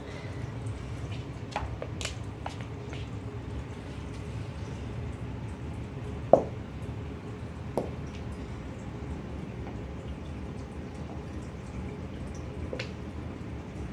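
A cat rolling and writhing on a hardwood floor under the effect of catnip: a few soft clicks and knocks of its body and claws against the boards, with one sharper knock about six seconds in and a lighter one just after, over a steady low background hum.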